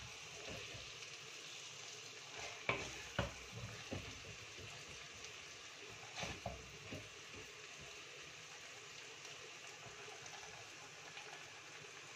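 Wooden spoon scooping minced mutton out of a clay handi, with a few knocks of the spoon against the pot, the loudest about three seconds in, over a faint steady sizzle from the still-hot keema.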